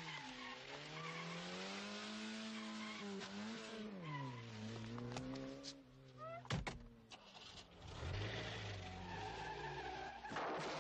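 Car engine revving hard, its pitch climbing and dropping as the car is driven fast. About five seconds in there is a brief rising tyre squeal, followed by a sharp knock, and then the engine picks up again.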